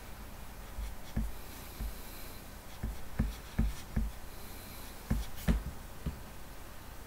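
Irregular soft thumps and rubbing from hands working at a desk close to the microphone, about a dozen in seven seconds; the mouse is in use.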